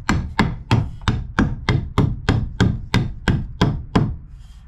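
A hammer striking wood in a steady run of blows, about three a second, stopping about four seconds in: a cut piece of lumber being driven down into a tight gap in the floor framing.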